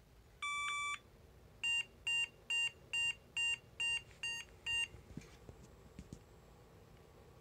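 A 486 computer's speaker sounding a BIOS beep code at power-on: one long beep, then eight short beeps in a steady row. The POST code this goes with means display memory failed and no EGA/VGA controller was found, because no video card is installed.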